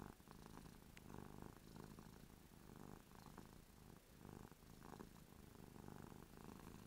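Domestic cat purring faintly, the purr swelling and fading about once a second with her breathing; a contented, happy cat.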